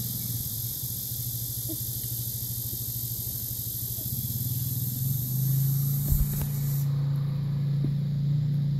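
Steady low mechanical hum, like a motor running, which grows louder about five and a half seconds in, with a couple of low thumps about six seconds in.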